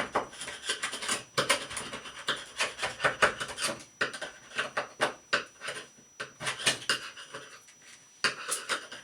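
Irregular scrubbing and scraping strokes as the opened shower valve body is cleaned out after the old stem is removed, with a brief pause near the end.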